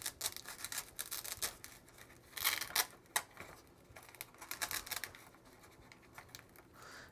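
Hook-and-loop tape tearing apart as an ESC is pulled off inside a foam model-airplane fuselage, with scattered scratching and rustling of hands, foam and wires. The loudest tearing comes about two and a half seconds in.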